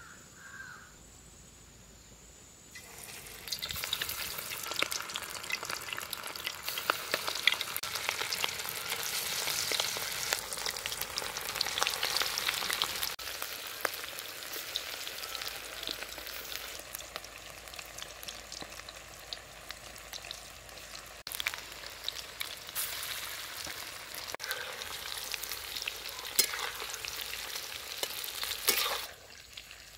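Battered chicken liver and gizzard pakoras deep-frying in hot oil in a kadai: a steady, crackling sizzle. It starts about three seconds in, as the pieces go into the oil, and cuts off suddenly near the end.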